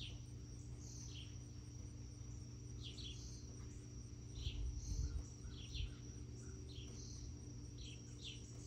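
Quiet outdoor ambience: a steady high insect drone with short, high chirps every half second to a second, over a low steady hum.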